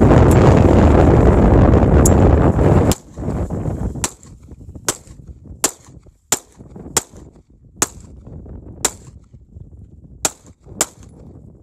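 A handgun fired about a dozen times in a slow string, roughly one shot a second, each a sharp crack. For the first three seconds the shots sit under heavy wind rumble on the microphone, which cuts out suddenly about three seconds in.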